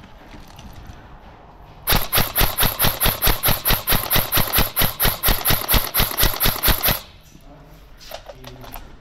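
Airsoft gun firing a rapid string of shots, about five a second, starting about two seconds in and stopping about five seconds later.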